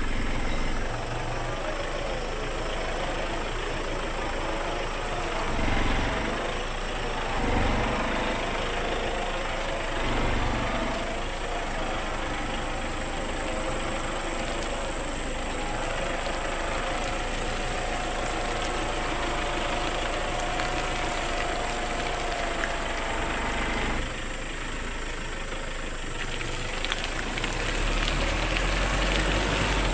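Car engine running and revving in several short surges as the car reverses, straining for grip on a soft track where it has almost got stuck.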